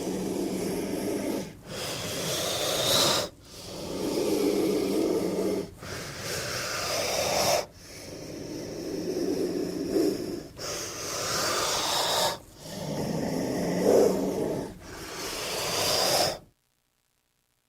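King cobra hissing in deep, growl-like breaths, about eight long exhalations with short pauses between them, then stopping.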